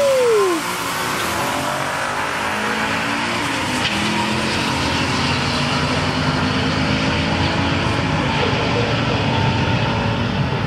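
Two cars making a quarter-mile drag run at full throttle. Loudest in the first half second, where the engine pitch rises and then falls as they go by, then a steady engine sound as they run down the track.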